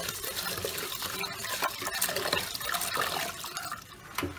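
Tap water running and splashing into a metal pot in a stainless steel sink while hands scrub inside it, with many small knocks and clicks.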